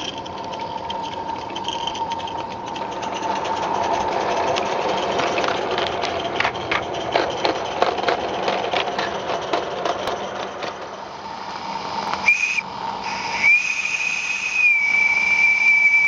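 A live-steam garden-railway locomotive and its small freight wagons run and rattle over the track, with many sharp clicks. About twelve seconds in, the engine's steam whistle gives a short toot, then a long blast of about three seconds that drops slightly in pitch partway through.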